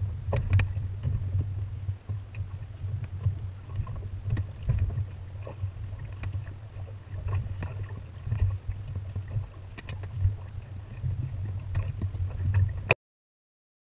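Water and wind noise aboard a small sailing dinghy under way: a steady low rumble with frequent irregular splashes and slaps of water against the hull. It cuts off abruptly about a second before the end.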